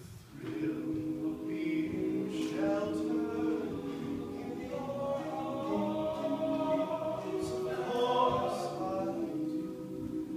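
All-male a cappella group singing in close harmony, one voice carrying the melody over the others' backing chords. The singing comes back in after a brief break right at the start.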